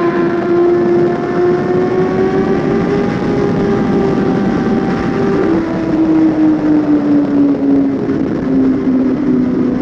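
Suzuki GSX-R1000 inline-four engine running while the bike is ridden. Its pitch climbs slowly, drops suddenly about five and a half seconds in, then falls away gradually.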